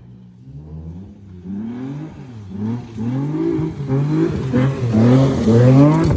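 Car engine revving again and again, the pitch climbing on each rev, getting louder toward the end.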